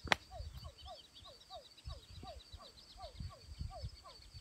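A small animal in the background calling over and over, a short falling note repeated evenly about two to three times a second, with fainter high chirps above it. A single sharp click sounds just after the start.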